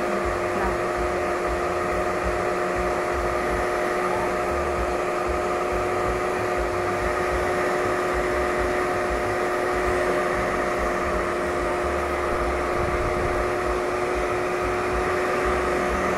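Handheld hair dryer blowing steadily on its hot setting: a steady motor whine over the rush of air.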